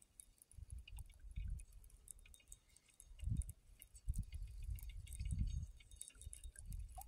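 Wind gusting over the microphone in uneven low rumbles, with faint, fast ticking from a spinning reel being cranked to retrieve the line.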